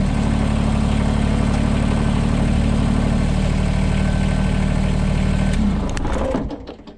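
Kubota BX2380 sub-compact tractor's three-cylinder diesel engine running steadily at low throttle, then shut off about six seconds in and running down to a stop.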